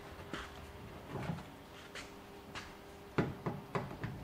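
Hand screwdriver turning a side-mirror mounting screw into a pickup truck's sheet-metal door, with scattered light clicks and scrapes and a sharper knock about three seconds in.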